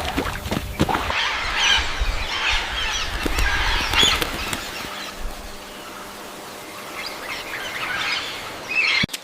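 Many birds calling at once in a dense, chattering mass, loudest in the first few seconds and thinning out after about five seconds, then cut off suddenly near the end.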